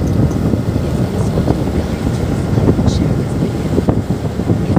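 Wind buffeting the microphone of a moving motorcycle, a steady low rumble mixed with road and traffic noise.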